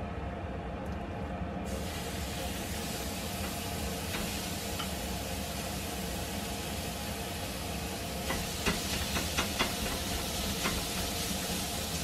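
Minced meat dropped into a hot nonstick square egg pan and sizzling on high heat, the sizzle starting about two seconds in and holding steady. Over a steady low hum, a few sharp clicks come in quick succession in the last third as the meat is stirred in the pan.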